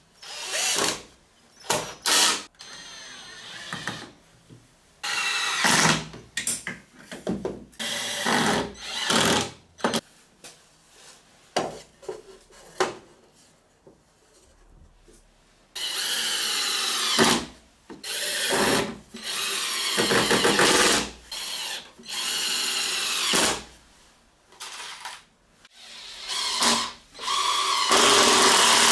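Cordless drill-driver whirring into wood in repeated short bursts, spinning up each time, with knocks and handling of plywood parts in between. Near the end it runs longer and steadily.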